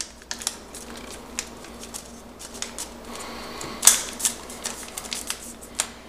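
Origami paper crinkling and crackling as it is folded and creased by hand: a run of small irregular crackles, with one sharper snap about four seconds in.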